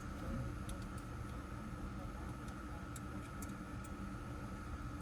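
A few light, scattered clicks of small hand tools (hex and Torx keys) being handled and fitted to screws, over a steady low hum and a faint steady high tone.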